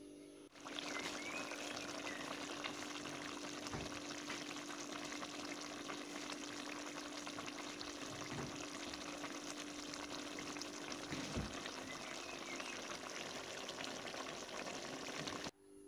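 Spaghetti cooking in a pan of thin tomato sauce, sizzling and bubbling steadily with fine crackles. It starts about half a second in and cuts off suddenly near the end.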